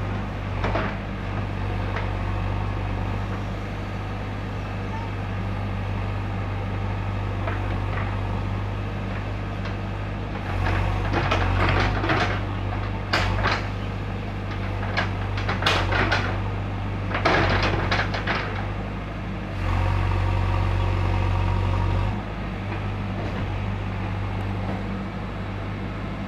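JCB backhoe loader's diesel engine running steadily, revving up under hydraulic load as the backhoe arm works: once about ten seconds in and again about twenty seconds in.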